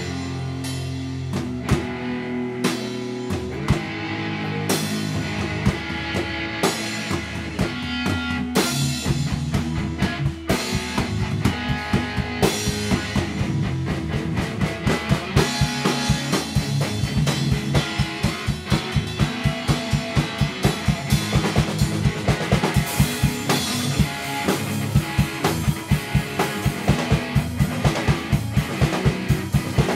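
A rock band playing live: two electric guitars over a drum kit, the drums settling into a steady, even beat about halfway through.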